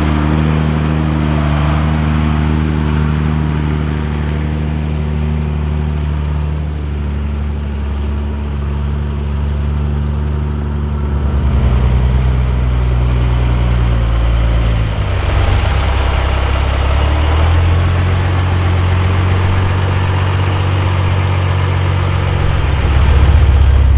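Mercedes-Benz Unimog U1700L truck's diesel engine running at low speed, its pitch stepping up and down several times as the engine speed changes. It gets louder about halfway through and again near the end.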